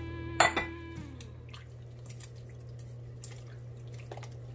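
A sharp clink with a brief ring about half a second in, then gloved hands working sirloin tips through a liquid marinade in a stainless steel bowl: soft wet squelches and drips over a steady low hum.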